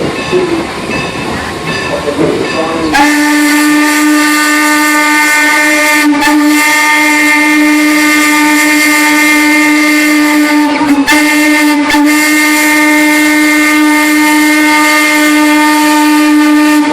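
Steam locomotive whistle blowing about three seconds in, over the running noise of the train. It sounds one steady, many-toned note in a long, long, short, long pattern lasting some fourteen seconds: the standard signal for a grade crossing.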